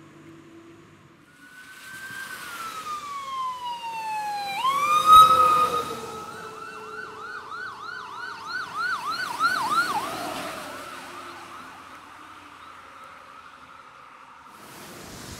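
Electronic siren on a responding emergency truck. It winds down in a slow wail, jumps back up sharply, switches to a fast yelp for several seconds, then holds a steady tone that fades away as the truck passes, with the hiss of tyres on a wet road.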